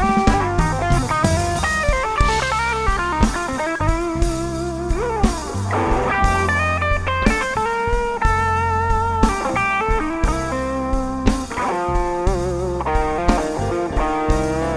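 Live blues band playing an instrumental passage: an electric guitar lead with bent and wavering notes over bass, drum kit and keyboard.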